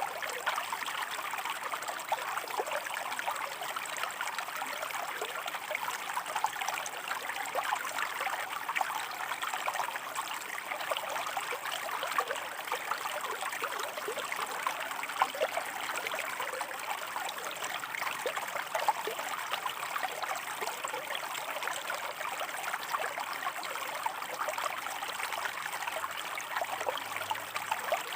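Shallow river water running over rocks: a steady rush full of small splashes and trickles.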